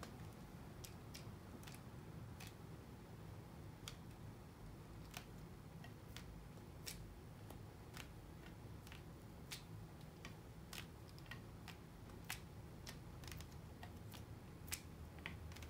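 Faint, irregular light clicks and taps of small parts being handled, about one or two a second, over a low steady room hum.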